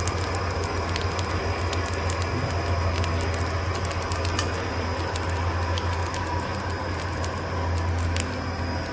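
Wood-pulp roller molding machine running with a steady low electric hum and a faint high whine, with scattered sharp clicks and crackles. The hum drops slightly about eight seconds in.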